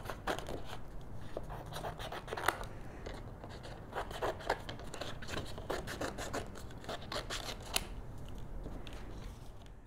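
Small craft scissors snipping through cardstock, cutting out a stamped rose shape in many short, irregular snips.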